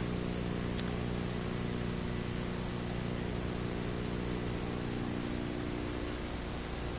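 Steady hiss with a low, even hum of several steady tones; the hum fades out about six seconds in, leaving the hiss.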